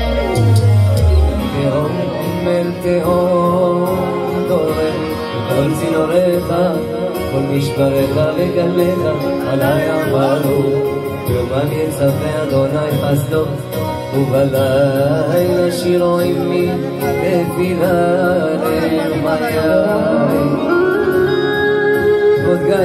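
Man singing a Jewish religious song through a microphone, holding long notes with wavering ornaments, with a second male voice joining in over a musical backing.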